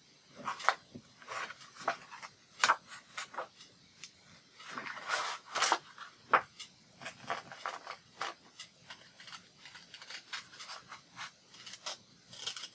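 Scissors cutting across a sheet of printed paper in short, irregular snips, with the paper rustling as it is handled.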